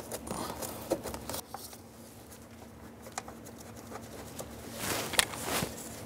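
Light clicks and scrapes of metal parts handled in a gloved hand as a bolt is fitted by hand into a truck door hinge, with a cluster of clicks about five seconds in.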